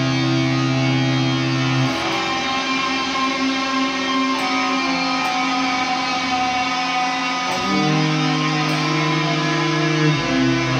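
Improvised guitar and bass duo playing long held notes, moving to a new chord every two to three seconds.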